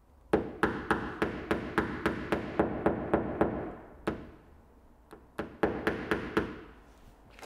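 Paintless dent repair knockdown punch struck with a small plastic-headed hammer, tapping down a high spot on a car bonnet. A quick run of about a dozen light taps at three to four a second, a single tap, then a second shorter run of about six taps.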